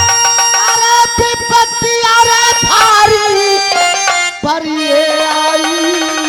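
Instrumental passage of dhola folk music: a harmonium holding and shifting between reedy sustained notes, with a few sharp drum strokes in the first half and one more past the middle.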